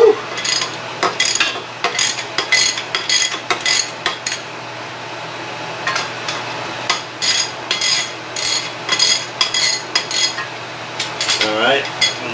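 Runs of sharp metallic clicks, a few a second, from hand tools working a steel screw puller on a jackshaft pulley that is coming loose. Near the end comes a brief warbling whir as an air impact wrench is picked up.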